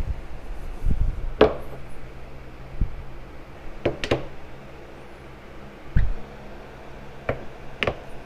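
Scattered knocks and clinks of hard soft-plastic bait-making gear being handled while injecting melted plastisol into molds, about eight in all, a few with a short ring, over a steady low hum.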